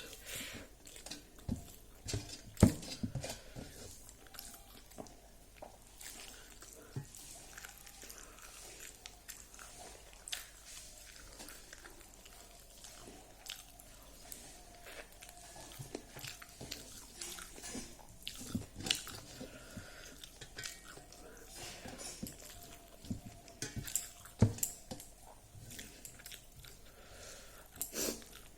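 A person chewing and eating rice with fried dried pork: irregular crunches and wet mouth clicks, the sharpest about two and a half seconds in.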